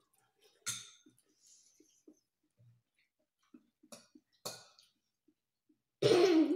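Spoons and forks clinking and scraping on plates during a meal: a few separate light clinks with small taps between them, then a louder, brief noise near the end.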